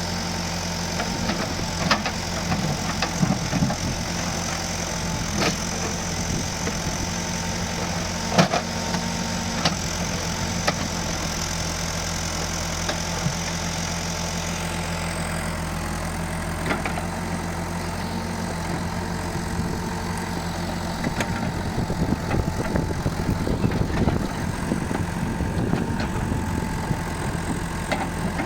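Komatsu FAI 898 diesel engine idling steadily, with scattered sharp clicks. A high hiss stops about halfway through.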